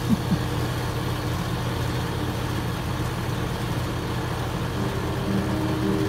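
Outdoor unit of a 20-year-old Gibson heat pump running just after kicking on, its compressor and condenser fan making a steady hum with a constant low tone.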